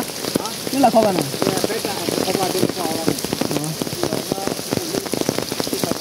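Steady rain falling, with many separate drops striking close by; faint voices now and then.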